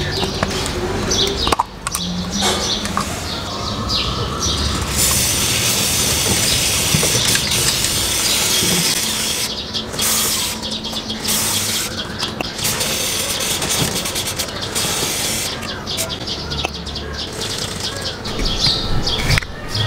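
Aerosol chain lubricant hissing from a spray can onto a motorcycle drive chain: one long spray about five seconds in, then a run of shorter bursts. Birds chirp in the background.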